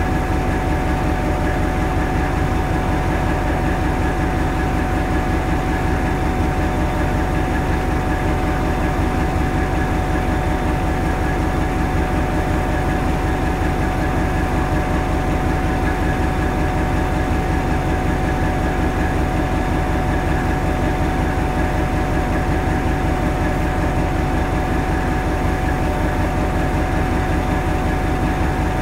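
Hastings DEMU's English Electric 4SRKT diesel engine idling with a steady, regular throb, heard from the driving cab next to the power unit; a steady tone runs above the throb.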